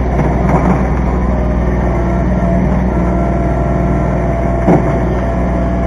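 Kubota B2320 compact tractor's three-cylinder diesel engine running steadily, with a brief louder sound about three quarters of the way through.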